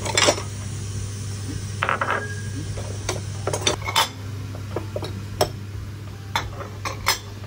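Ceramic bowls clinking and knocking against each other and the dish drying rack as they are lifted out and stacked, a run of sharp clinks scattered irregularly. A steady low hum runs underneath.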